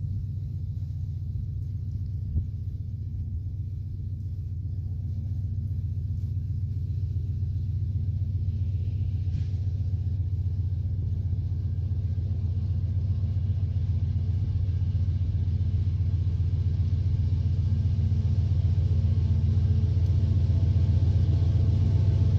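Two GE AC44i diesel-electric locomotives approaching with an empty ore train: a low diesel rumble that grows steadily louder, with steady engine tones coming through near the end.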